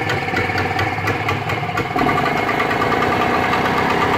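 Vire 12 two-stroke marine inboard engine running, then revved up about two seconds in and held steady at a higher, louder speed.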